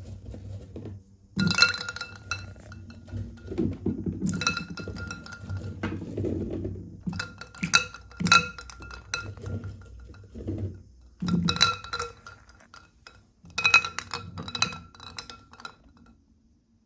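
Glass marbles rolling down a wooden marble run, clicking and clinking against each other and the track with a bright ringing tone, in bursts with short pauses between them, over a low rolling rumble.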